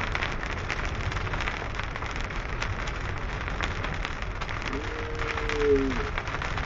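Heavy rain falling steadily, with many separate drop hits. A brief pitched sound, like a short voice, comes in near the end.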